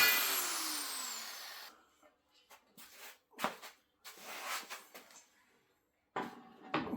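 Angle grinder spinning down after cutting steel chassis rail: the whine falls steadily in pitch and fades out over under two seconds. Then a few faint clunks and rubs of the metal being handled.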